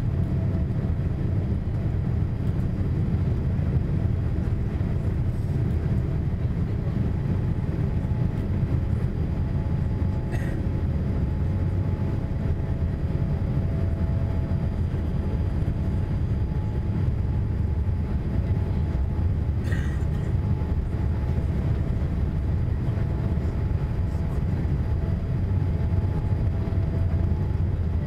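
Cabin noise of a Boeing 787-8 taxiing, heard from a seat over the wing: a steady low rumble from the Rolls-Royce Trent 1000 engines at low thrust and the rolling gear, with a faint steady engine whine over it. Two faint clicks come about ten seconds apart.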